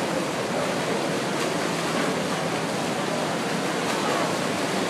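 Many swimmers splashing and kicking through the water of an indoor pool, a steady, continuous wash of splashing.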